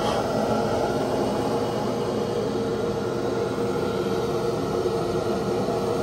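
Gas boiler's combustion blower running with a steady hum and whir during the pre-purge stage of startup, before the igniter sparks.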